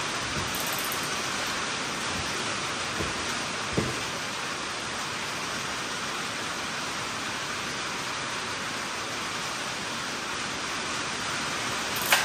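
Steady rain on a tin shop roof, an even hiss. Two soft knocks come around three to four seconds in, and a sharp clack near the end as the chainsaw's starter cord is pulled.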